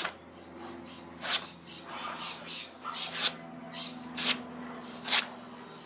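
Freshly sharpened custom knife slicing through paper: about five short swishes roughly a second apart, with a few fainter cuts between them.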